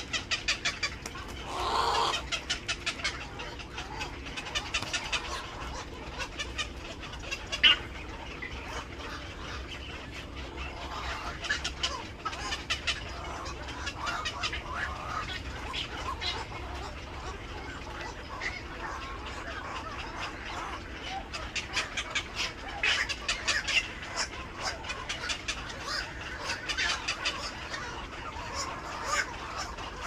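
Black-crowned night heron nestlings giving rapid clicking, clucking begging calls in repeated bursts, with a harsher call about two seconds in and a sharp, louder call about eight seconds in.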